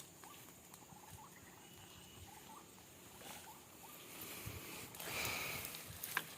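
Faint short squeaky chirps and a brief whistle, then a rustling noise about five seconds in and a sharp click just before the end.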